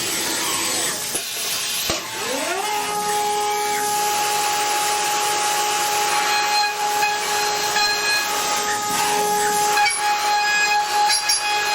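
CNC machine spindle whining under a steady hiss. About two seconds in its pitch dips and then climbs, settling into a steady whine as it comes up to cutting speed.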